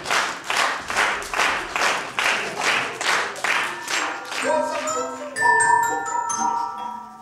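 Rhythmic claps in a steady beat, about three a second. About four seconds in they stop and ringing pitched notes take over, with a short rising glide and then held bell-like tones.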